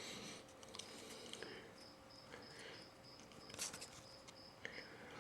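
Faint handling of trading cards from a freshly opened pack: soft rustles and small clicks, one a little sharper about three and a half seconds in. A faint high-pitched, evenly pulsing chirp runs through the middle.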